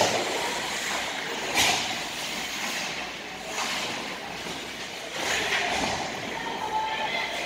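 Ice hockey skate blades scraping and carving the ice in hissing swishes, three louder ones about a second and a half, three and a half and five seconds in, over the steady noise of the arena.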